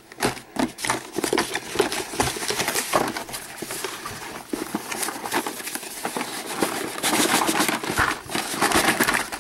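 Cardboard box handling: a long white cardboard box scraped and slid across the carpet and its end opened, with many small knocks and scrapes. Near the end the blister-carded Hot Wheels cars slide out of the box, and the rustle and clatter grow busier.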